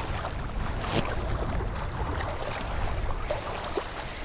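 Wind buffeting the microphone: a steady low rumble with a few faint small clicks.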